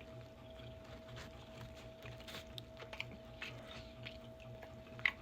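Faint close-up chewing of a mouthful of bacon cheeseburger, with soft wet mouth clicks and one sharper click near the end, over a faint steady hum.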